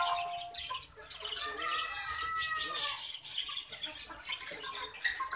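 Birds chirping, with many quick high chirps throughout and a longer curved call near the middle.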